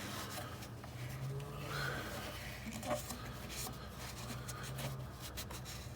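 Small scratchy scraping and rubbing strokes as old gasket residue is cleaned off the thermostat housing's mating surface.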